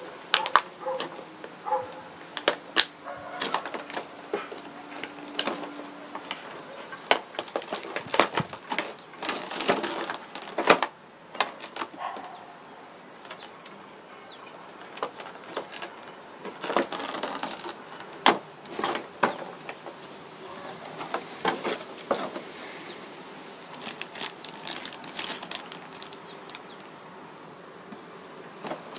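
Packaging being handled and opened: irregular rustling, crinkling and sharp clicks and taps, in clusters with quieter spells between.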